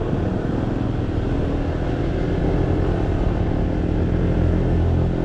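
Motorcycle engine running steadily under way, with a constant low drone and road and wind noise.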